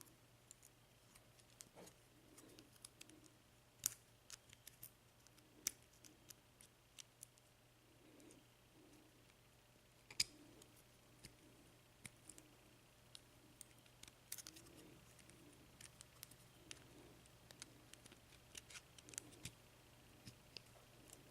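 Scattered faint clicks and taps of small metal tools working on a brass euro cylinder lock as it is being taken apart, with a few sharper clicks among them.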